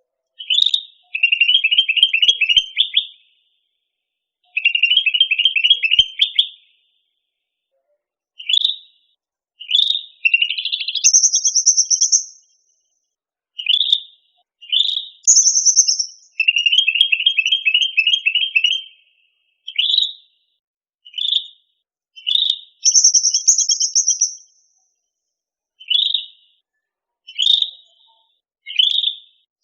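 A cucak rante (cucak ranting) songbird singing in repeated phrases. Rapid chattering trills of a second or two alternate with short single notes and higher, thinner phrases, with brief pauses between them.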